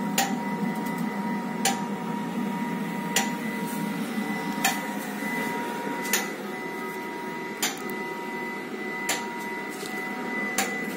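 KIPI pellet burner in its self-cleaning cycle after shutdown: the combustion fan blowing steadily with a faint whine, and a sharp click about every one and a half seconds. The blowing drops a little about six seconds in.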